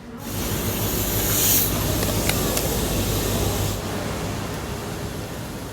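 Loud rushing hiss of air over a low rumble from a train. It starts abruptly and eases off after about four seconds.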